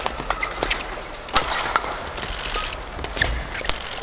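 Badminton rally: rackets striking the shuttlecock in a quick exchange, sharp cracks every half second to a second, with shoes squeaking on the court floor.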